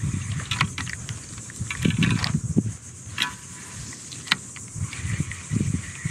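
Irregular low rumbles of wind and rubbing on a chest-mounted camera's microphone, with scattered short clicks and rattles from a spinning rod and reel being handled.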